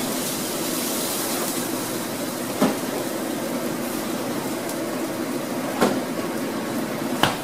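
Steady hiss and hum of a commercial kitchen where egg whites are cooking on a flat-top griddle, with three sharp clacks spread through it as things are handled.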